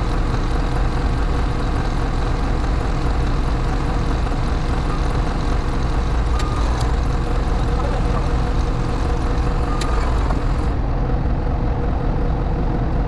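New Holland backhoe loader's diesel engine running steadily, heard from inside its cab, with two light clicks about six and a half and ten seconds in.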